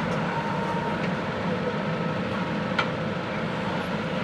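JCB backhoe loader's diesel engine running steadily, with a single sharp metallic clink near the middle.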